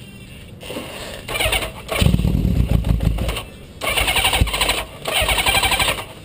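Honda CB550's four-cylinder engine being cranked on its starter in several short bursts with pauses between them. It does not settle into a steady idle.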